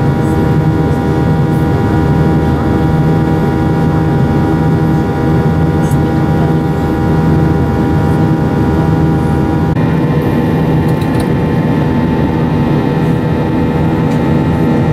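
Jet airliner's engines heard from inside the cabin during the climb after take-off: a steady drone carrying several held tones over a broad rush. About ten seconds in, the higher tones shift slightly in pitch.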